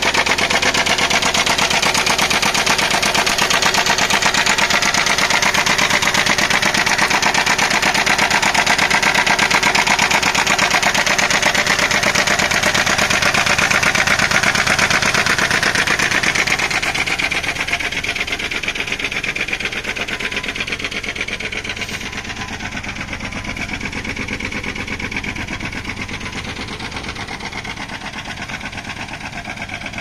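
Hyundai Xcent engine idling with a rapid, steady knock, the sign of a worn-out connecting rod bearing. It grows quieter about halfway through.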